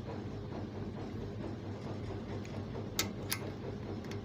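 Two light clicks about three seconds in, a third of a second apart, from metal parts of an overlock machine being hooked into place by hand, over a steady low hum.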